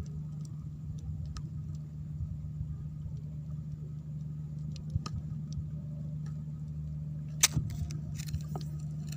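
A steady low hum with scattered faint ticks. About seven seconds in, a sharp knock is followed by light splashing and clicks as a bamboo pole with a metal fork tip is pushed through shallow water.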